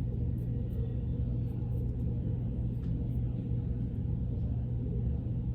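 A steady low hum that runs unchanged, with a few faint light ticks above it.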